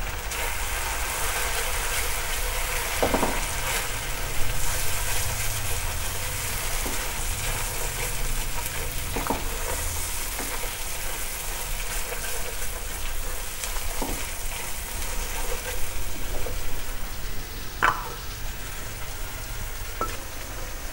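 Hot oil sizzling steadily in a wok as a blended fried-onion and green-chilli paste fries with ginger-garlic paste, stirred with a silicone spatula. A few brief clicks of the spatula stand out.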